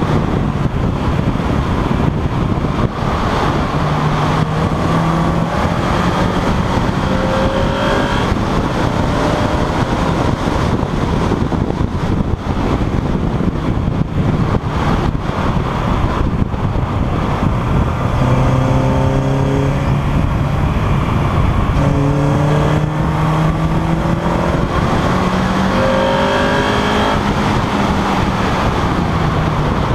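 Honda Integra DC2 race car heard from inside the cabin at track speed: its four-cylinder engine is driven hard, its pitch climbing and dropping back again and again, over a steady rush of road and wind noise.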